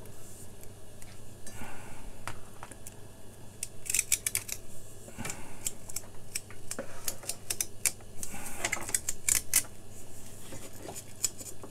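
Self-adhesive LED strip being peeled out of a plastic lamp channel. The sticky tape backing lets go with a string of small crackling clicks and ticks, in clusters about four seconds in and again between about seven and nine and a half seconds.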